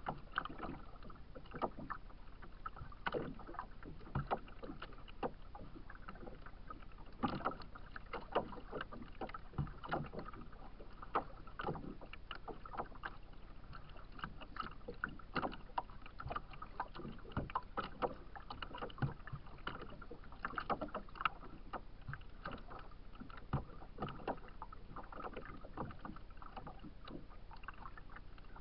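Small choppy waves lapping and slapping irregularly against a kayak's hull right under the bow, with frequent sharp knocks over a steady wash of water.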